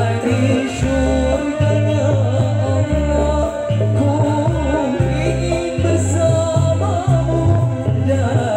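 Live band music with a voice singing over it. A bass line moves in short held notes under a wavering melody.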